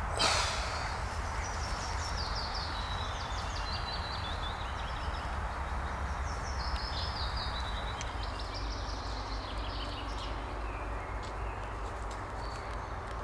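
Several songbirds singing in woodland, repeated short trilled phrases, over a steady low rumble. A brief rustle right at the start.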